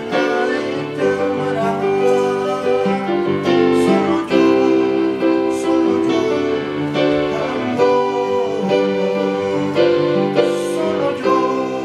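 Electronic keyboard played by hand: a melody over held chords.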